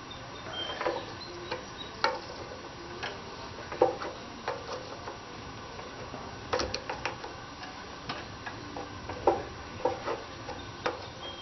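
Irregular clicks and light metallic knocks of hand tools working on the tractor's engine parts, with a short quick run of clicks about two-thirds of the way through.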